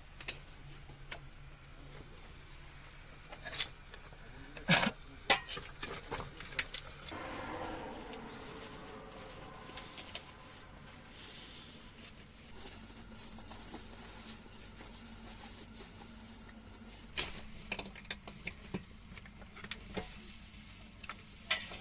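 Kitchen handling sounds: clinks and knocks of a stainless steel cooking pot, its lid and utensils, with stirring and rustling as bones and food are handled in the pot. The sharpest knocks come about four to seven seconds in and again near the end.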